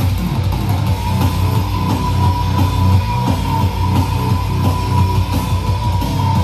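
A rock song played at full volume through a Pioneer PBM5 portable party speaker with bass boost on, so the low bass is heavy and continuous under the guitar and drums.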